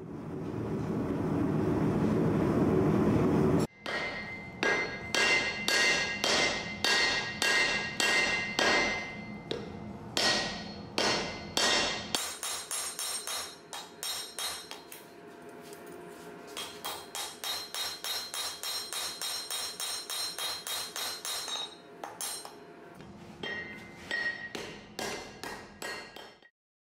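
Gas forge burner running steadily for a few seconds. Then a hammer strikes red-hot leaf-spring steel on an anvil: loud ringing blows about two a second, followed by a long run of quicker, lighter strikes, and a few more blows near the end before the sound cuts off.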